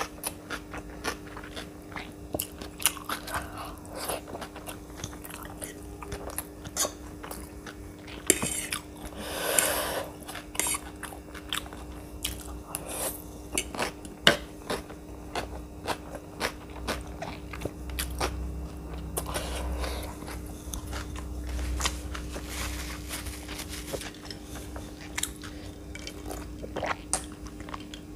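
Close-miked eating sounds: a person chewing and biting noodles and boiled egg, with frequent wet mouth clicks and a longer, louder noisy stretch of mouth sound about nine seconds in. A faint steady hum runs underneath.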